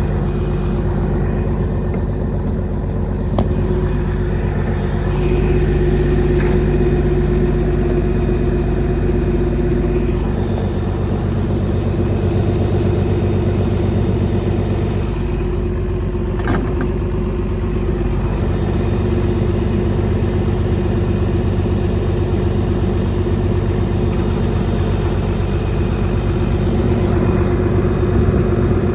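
Combine's diesel engine running steadily at idle, its low note shifting slightly about ten seconds in.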